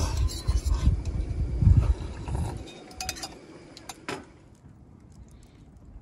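Gusty wind buffeting the microphone as a low, uneven rumble that dies down after about two and a half seconds, followed by a few light clicks and clinks.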